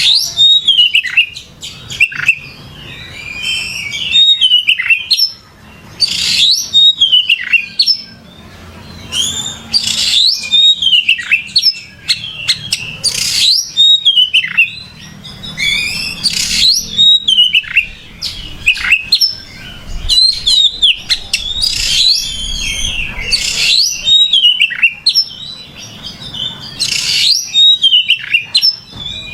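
Oriental magpie-robin (kacer) singing vigorously: a long, varied song of loud whistles, quick slurred notes and sharp chips, in phrases every few seconds with short gaps between them.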